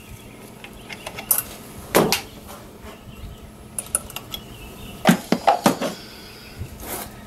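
Hand wrench clinking against a cable's adjusting nut and metal bracket as the cables are worked loose: a series of sharp metallic clicks and clinks, with a quick cluster of them about five seconds in.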